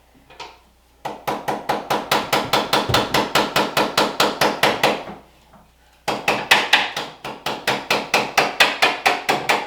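Hammer striking rapidly and evenly at bathroom backsplash tile, about five blows a second, to knock it off the wall. The blows come in two runs of roughly four and three seconds with a short pause between.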